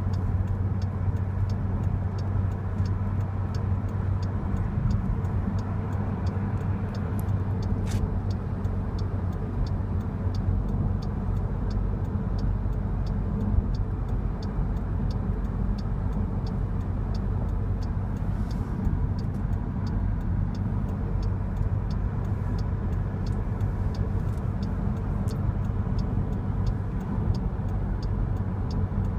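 Steady road and engine noise inside a car's cabin at highway speed, a low rumble, with a light, regular ticking running through it.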